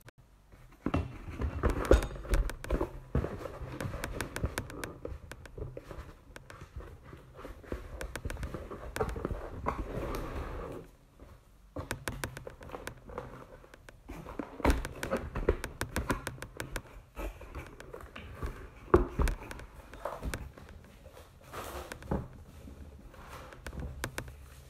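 Thin plastic cover crinkling and rustling close up as it is fitted over a glass bowl, with small taps and knocks against the bowl and counter. It stops for about three seconds halfway through, then starts again.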